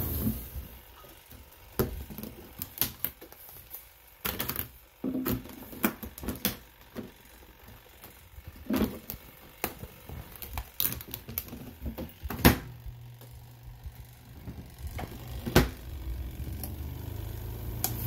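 Irregular clicks and knocks from handling a portable twin-tub washing machine: its plastic lids opening and clothes being pulled about in the spin basket. The loudest knock comes about two-thirds of the way in, followed by a brief low hum.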